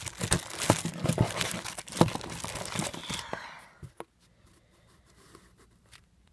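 Plastic squishy packaging crinkling and rustling as it is handled, with sharp crackles, stopping about four seconds in; after that only faint handling noise.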